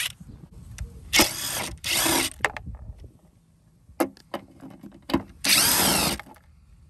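Cordless Ridgid power driver with a socket spinning on the fender bolts in three short bursts: about a second in, two seconds in, and near the end. A few light clicks come between the last two bursts.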